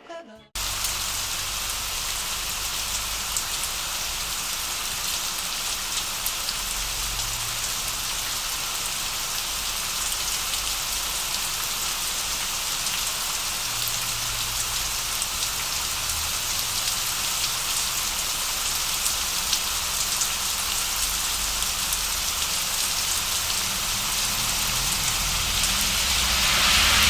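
Steady rain falling on a hard surface, a dense patter that grows slightly louder toward the end.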